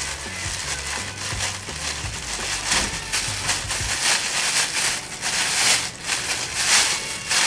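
Plastic bag rustling and crinkling as it is handled, in irregular bursts that get louder and denser in the second half, with a low rumble under the first half.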